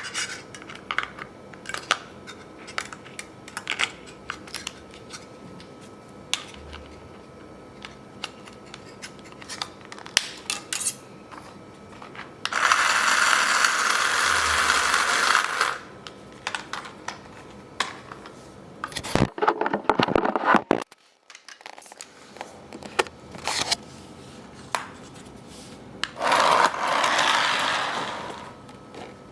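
Clicks and knocks of a plastic toy remote control car being handled, broken twice by a few seconds of its small electric motor running.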